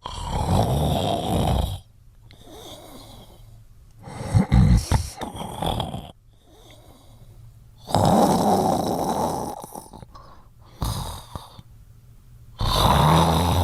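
Snoring: four loud snores, one about every four seconds, with quieter breathing noise between them.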